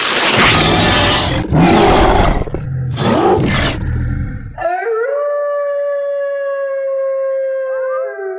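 Werewolf transformation sound effect: harsh growling and roaring for about four and a half seconds, then one long wolf-like howl that rises and holds steady, ending just before the end.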